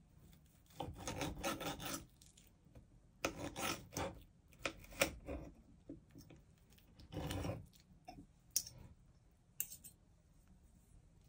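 Table knife sawing back and forth through a piece of fried meat on a plate, in several short rasping bursts, followed by two sharp clicks of cutlery on the plate near the end.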